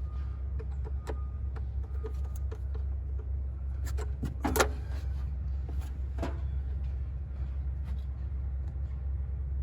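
Scattered light clicks and taps of hands and parts being handled in a truck's engine bay, with the throttle body's electrical connector being plugged back in, over a steady low rumble.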